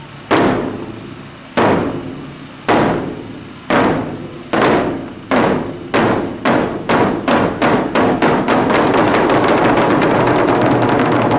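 Large Aomori nebuta-bayashi taiko drums struck together by several drummers with long sticks. Single heavy blows about a second apart come faster and faster, until about three-quarters through they merge into a rapid continuous roll.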